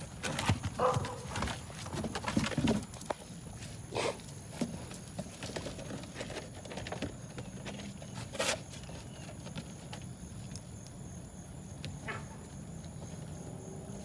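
Belgian Malinois puppies' paws scrabbling and knocking on a small wooden agility ramp topped with artificial turf: irregular light knocks and scuffs, busiest in the first few seconds, with the sharpest knock about eight and a half seconds in.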